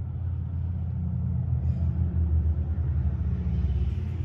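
A steady low rumbling hum, all in the bass, growing a little louder and more uneven in the middle.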